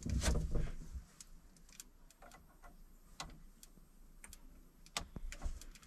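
Wires being fastened into a solar charge controller's terminals: a burst of handling noise, then scattered light clicks and ticks from the terminal screws and tool.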